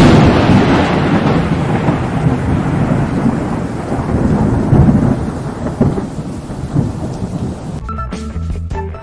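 Thunder sound effect in a logo intro: a sudden crack and boom, then a long rolling rumble with a rain-like hiss that slowly dies away. Short musical notes come in near the end.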